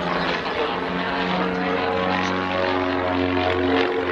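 Piston engines and propellers of two Pitts Special aerobatic biplanes droning overhead in formation, a steady buzzing note whose pitch wavers slightly up and down.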